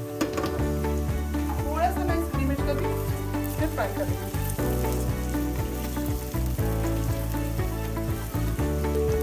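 Sliced onions and chopped green chillies sizzling in hot mustard oil in an aluminium pressure cooker, stirred with a wooden spatula that scrapes and taps against the pot.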